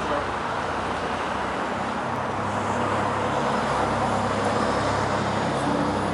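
A vehicle engine running steadily with a low hum, with no speech over it.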